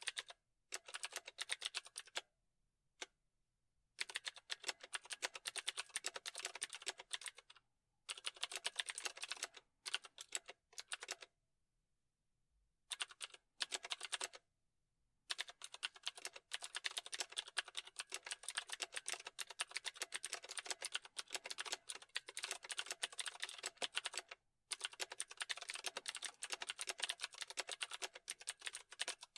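Fast typing on a computer keyboard, in bursts of several seconds broken by short pauses.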